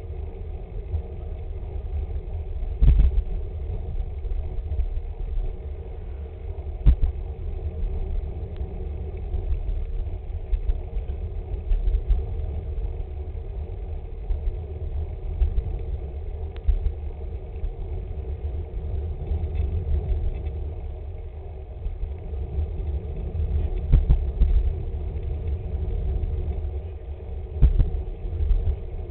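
Steady low wind buffeting and road rumble on a camera riding on a moving road bicycle, with a few sharp knocks, about four, spread through it.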